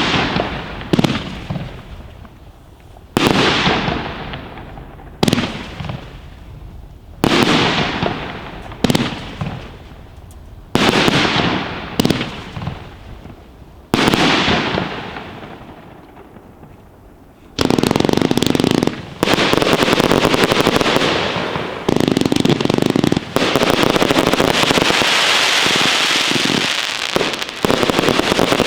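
Blackboxx Bison firework battery firing single shots every one to two seconds, each bang trailing off in a fading crackle-like hiss. About two-thirds through, the Startrade Verbund F4 compound battery starts and fires shots in quick succession as one continuous barrage.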